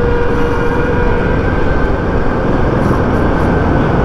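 Royal Enfield Himalayan 450 single-cylinder motorcycle riding steadily at low speed, engine and wind noise mixed with the traffic ahead, echoing as it enters a road tunnel behind a bus.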